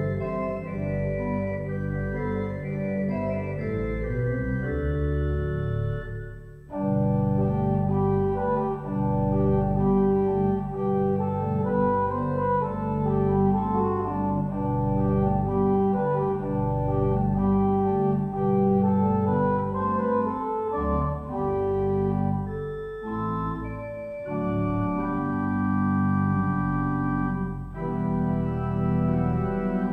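Church organ playing sustained chords over a deep pedal bass line, with a brief break about six and a half seconds in and short pauses later on.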